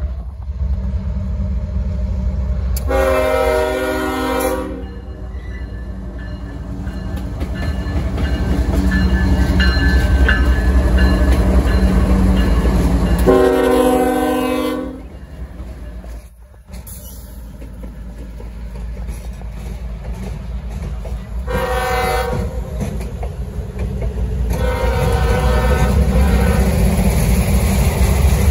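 CSX freight train's diesel locomotives passing close by with a steady low engine rumble, the lead locomotive's air horn sounding four blasts, the third shortest and the last the longest.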